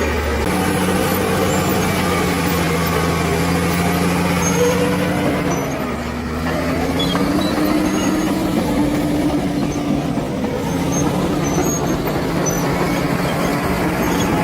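Bulldozer's diesel engine running under load, its pitch dropping briefly about six seconds in and then climbing back.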